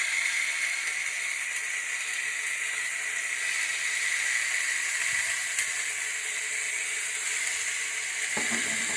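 Mixed chopped vegetables frying in hot oil in a pan, a steady sizzle.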